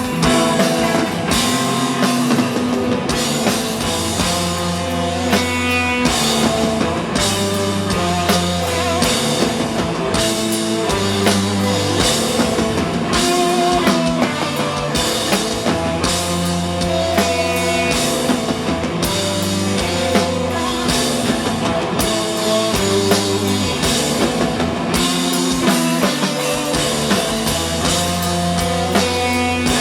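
Instrumental desert rock band playing live: electric guitar melody over bass guitar and a drum kit.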